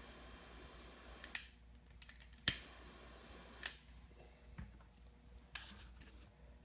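A few light clicks and taps from handling small parts and tools, spaced a second or so apart, over a faint low hum.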